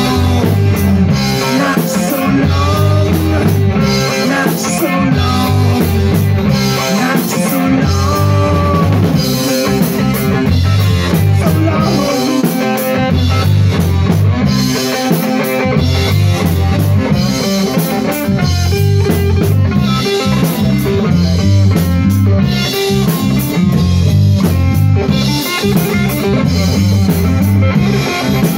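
Small rock band playing an instrumental passage of a song: guitar over a steady drum-kit beat, with no vocals.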